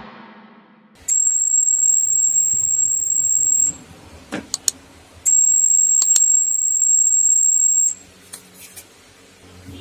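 Electronic buzzer of an LDR-triggered transistor security alarm sounding a steady high-pitched tone twice, each time for about two and a half seconds, with a few sharp clicks in the gap between.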